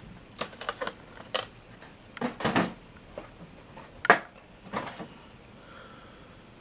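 Several short, light clicks and clinks of small hard objects, scattered and irregular, with the sharpest one about four seconds in.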